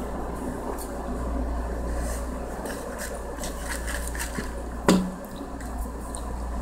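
Room noise with a steady low hum, scattered light clicks, and one sharp knock with a brief low ring about five seconds in.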